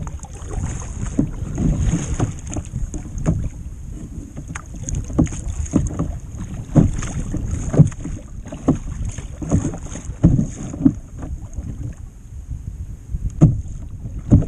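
Double-bladed paddle stroking through choppy sea water on a plastic fishing kayak, the splashes and knocks coming every half second to a second, with a few sharp louder ones. Wind buffets the action camera's microphone with a steady low rumble.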